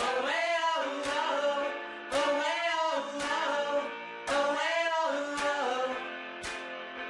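Background music: a song with guitar and singing, in phrases that swell about every two seconds.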